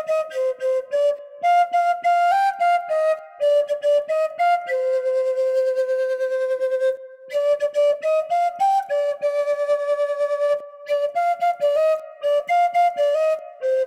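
Atenteben, a Ghanaian bamboo flute, playing the melody of an Ashanti funeral dirge solo. The tune moves in short stepping notes, with one long low note held for about two seconds around five seconds in.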